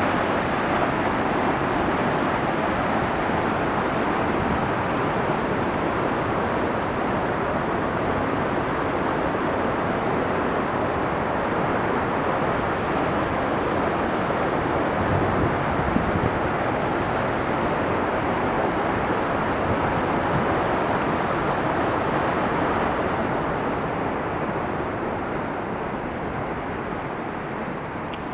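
Waterfall: a steady, loud rush of falling water, its hiss thinning a little near the end.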